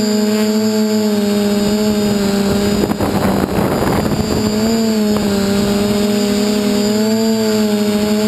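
DJI F450 quadcopter's motors and propellers humming steadily, the pitch wavering slightly up and down. A brief rush of noise comes about three seconds in.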